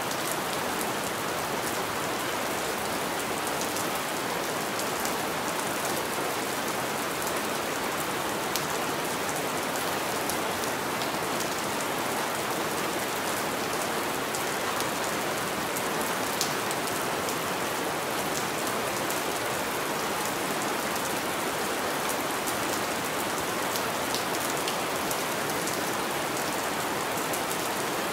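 Steady rain falling on a window pane: an even hiss with scattered light ticks of single drops.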